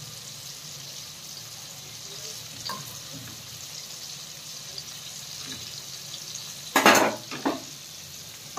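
Oil sizzling steadily around small whole fish shallow-frying on a flat tawa, with a knife scraping against the pan as it is worked under the fish. A short, louder burst of sizzle and scraping comes about seven seconds in, with a smaller one just after.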